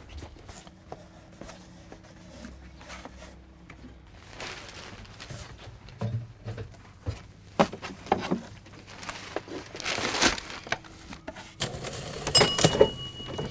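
Scattered small knocks, clicks and rustles of objects and paper being handled, growing busier and louder near the end. A thin, steady high tone sounds briefly near the end.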